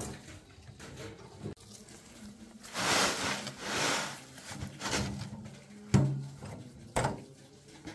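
Sandy soil and stones sliding out of a tipped metal wheelbarrow onto a pile, in two rushes about three and four seconds in. Two sharp knocks follow near the end, the first the loudest sound.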